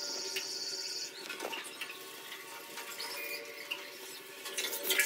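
Faint water sounds in a small tiled bathroom during a dog's bath: dripping and light splashing on the wet floor, with a high hiss for about the first second.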